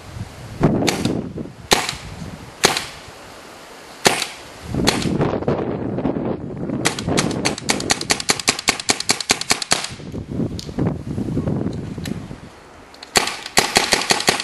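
RAP4 T68 M4-style paintball gun firing on high-pressure air. A few single shots come about a second apart, then a rapid string of about eight shots a second for several seconds, and another quick string near the end.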